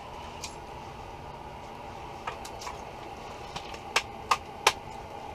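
Fishing gear and a freshly caught fish being handled: scattered sharp clicks and taps, the three loudest close together near the end, over a steady low hum.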